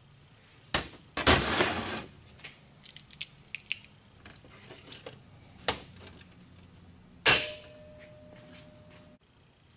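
Steel angle iron clanking and sliding on a steel workbench as two pieces are laid together and clamped with locking pliers. There is a noisy scrape about a second in, then a few light clicks. Near the end a sharp clank of steel on steel leaves a clear ringing tone for almost two seconds.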